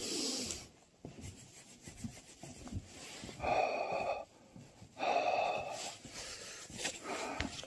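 A person blowing breath into cupped hands to warm them in the cold: a short breath at the start, then two long breaths about three and a half and five seconds in.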